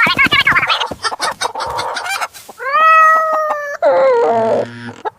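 Chickens clucking rapidly, then a rooster crowing once, a long call that rises, holds and falls away, starting about two and a half seconds in.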